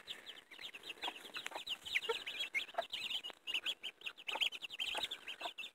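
Baby chicks peeping in rapid, high, falling chirps, many overlapping, with a few lower clucks from the adult chickens among them.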